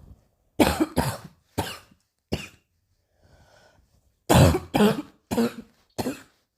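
Coughing in two short bouts of four coughs each, with a pause of about two seconds between the bouts.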